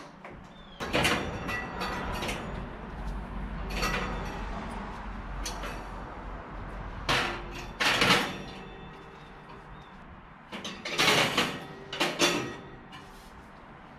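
Metal clinks and knocks of lures being hung on and taken off a toaster oven's wire rack, with the oven's glass door and rack rattling. Several separate clatters come a few seconds apart, the biggest about a second in, near the middle and toward the end.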